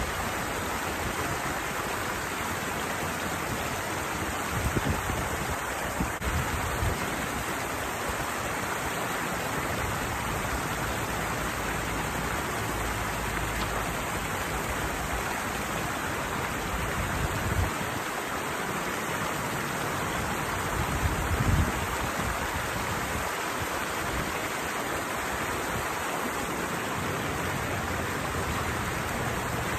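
Water rushing steadily over a small waterfall in a flowing channel, with a few brief low thumps.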